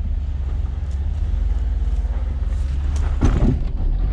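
Engine of a 4x4 running at low speed as it crawls over trail rocks: a steady low rumble, with a brief louder noise about three seconds in.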